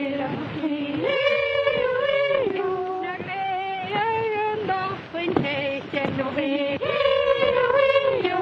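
A woman singing a Gaelic song in a slow melody of long held notes that step up and down in pitch.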